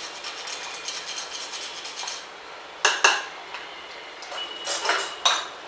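Nutmeg grated on a small metal hand grater: a fast, dry rasping for about the first two seconds. Then a few sharp metal clinks as the grater and utensils are set down.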